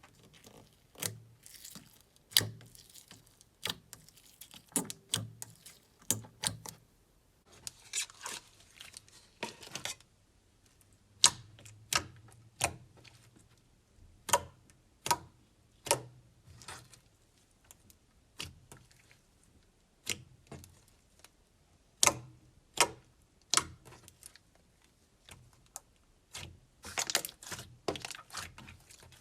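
Slime being pressed and squeezed by hand, making sharp clicking pops of trapped air about once a second. Two stretches of denser crackling come about eight seconds in and near the end.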